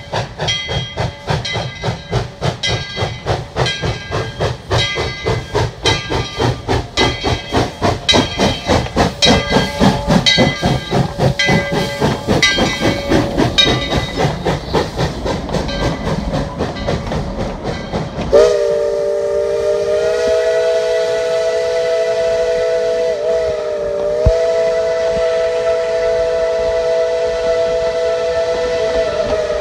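Tweetsie Railroad No. 12, a narrow-gauge Baldwin 4-6-0 steam locomotive, pulling away with its exhaust chuffing in a quickening beat. About two-thirds of the way through, its whistle sounds one long steady blast, a chord of several tones that wavers briefly midway.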